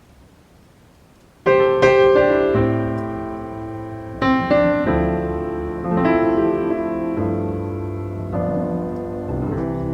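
Background piano music begins about a second and a half in: slow chords struck and left to ring and fade, a new chord every second or two.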